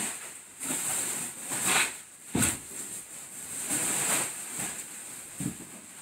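Plastic bubble wrap rustling and crinkling in bursts as it is pulled out of a large cardboard bike box, with a dull knock about two and a half seconds in.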